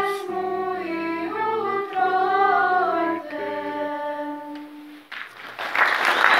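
A group of girls singing together, closing on a long held note; applause breaks out about five seconds in and swells quickly.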